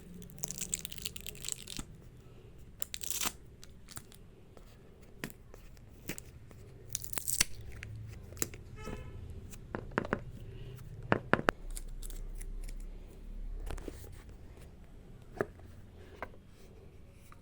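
Packaging of a small earbuds retail box being torn and peeled open by hand, in several short tearing bursts, with rustling and handling clicks.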